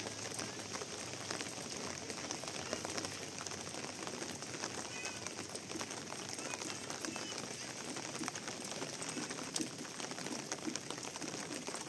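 Steady rain falling and pattering on surfaces, a continuous hiss dotted with small drop ticks.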